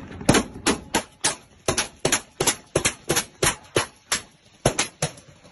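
Gunfire in irregular single shots, about three a second, each a sharp crack.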